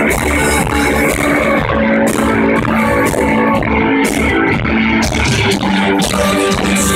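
Live rock band playing loud, guitar-driven music, picked up on a phone's microphone.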